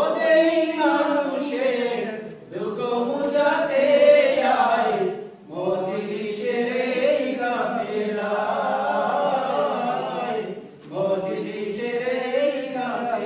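A group of men singing a Bengali devotional song together, unaccompanied, through a microphone and PA, in long sung phrases broken by brief pauses for breath.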